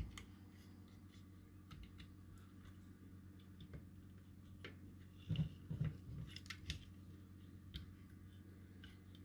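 Faint small clicks and taps of a switch being handled and pushed into a small circuit board, with a few louder knocks about five to six seconds in, over a low steady hum.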